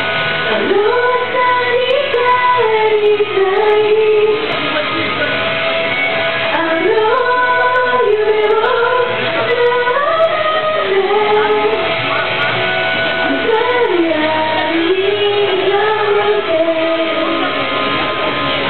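A woman singing a Japanese song karaoke-style into a microphone over a backing track, in phrases of a few seconds with short breaks between them.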